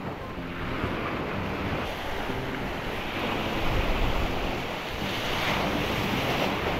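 Surf washing onto the shore, swelling and easing, with wind buffeting the microphone.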